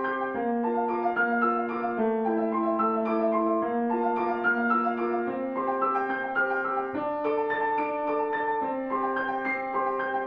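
Instrumental music: a piano playing an unbroken run of held notes and chords.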